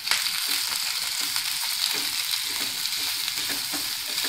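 Blanched broccoli, carrot and bell-pepper strips sizzling steadily in hot oil in a kadhai over a high gas flame while a spatula stirs them.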